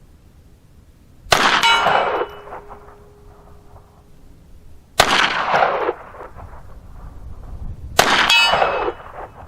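Three shots from a Kel-Tec P17 .22 pistol, a few seconds apart. Each is followed by the ring of a steel target plate being hit.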